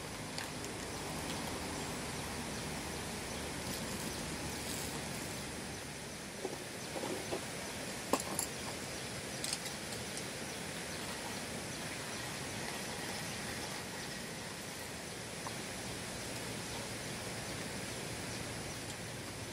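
Steady outdoor campsite background hiss, with a few light clicks and knocks near the middle, like things being handled on the camp table.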